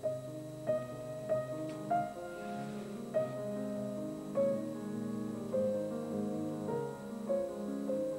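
Background piano music: a slow melody of single notes, each struck and left to ring.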